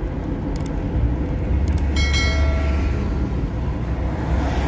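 Steady low rumble of a vehicle driving, heard from inside the cabin. Two brief clicks come in the first two seconds, then a short ringing chime about two seconds in.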